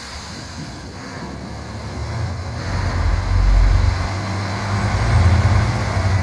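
Diesel railcar pulling out of the station, its engine revving up into a low rumble that builds from about two seconds in and swells twice.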